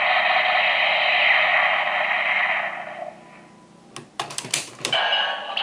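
Electronic toy sound effect from a small speaker: a hissing, sustained effect that fades out about three seconds in. It is followed by a quick cluster of plastic clicks as the toy is worked, and another electronic sound begins near the end.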